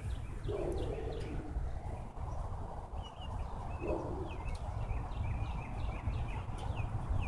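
Small birds chirping, many short high calls repeated throughout, over a steady low rumble.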